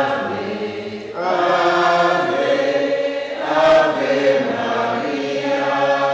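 A church congregation singing a hymn together in long, held notes, a new phrase starting about a second in and another around three and a half seconds.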